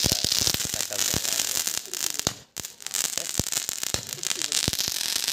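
A run of firecrackers going off: rapid sharp cracks and bangs over a steady crackling hiss, with a short break about two and a half seconds in.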